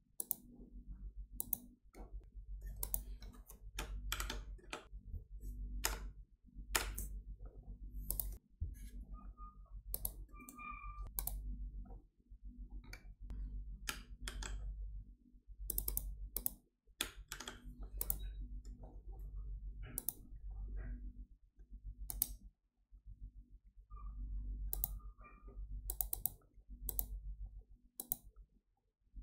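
Computer mouse clicking at irregular intervals, with single clicks and quick double clicks, over a low steady hum.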